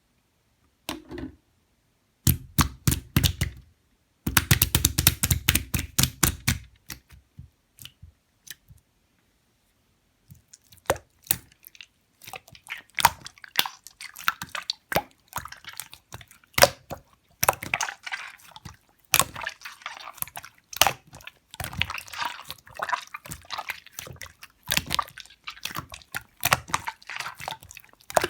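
Clear slime being squished and pressed by hand, making rapid wet clicks and pops. The clicking comes in dense runs, stops for about two seconds around 9 seconds in, then picks up again and grows busier.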